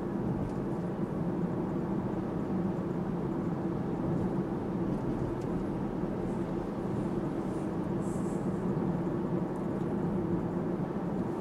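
Tesla electric car driving: steady tyre and road noise with a low, even hum, no engine sound.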